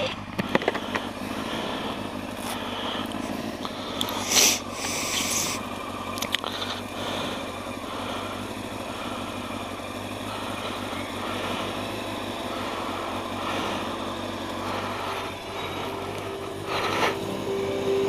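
Motorcycle engine idling steadily, with scattered clicks and rustles of gear being handled close by. A steady higher tone joins near the end.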